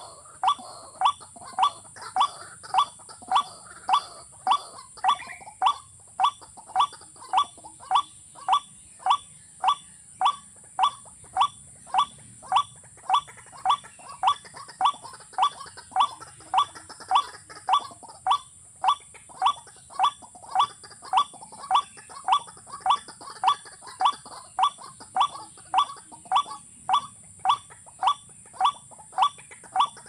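A bird's call: one short, loud, falling note repeated at a perfectly even pace, a little under two times a second, without a break. A steady high-pitched drone runs underneath.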